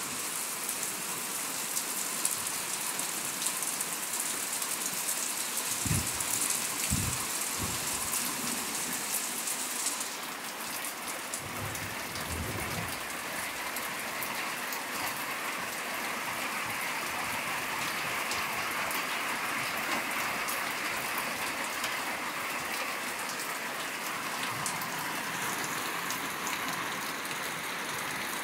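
Steady rain falling on and around a covered porch, an even hiss that eases slightly about ten seconds in. A few soft, low thuds come about six to eight seconds in and again around twelve seconds.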